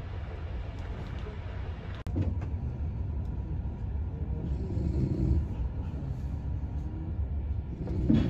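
Steady low rumble of a passenger train running, heard from inside the carriage. Over it a woman snores, loudest about five seconds in and again near the end.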